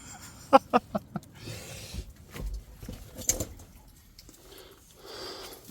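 Scattered knocks and scuffs of a person clambering over rock into a narrow mine entrance, with a quick run of sharp knocks in the first second and quieter scraping after.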